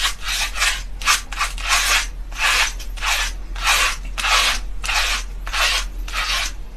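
Cartridge razors scraping over a lathered scalp in quick repeated strokes, about two to three a second, heard close up.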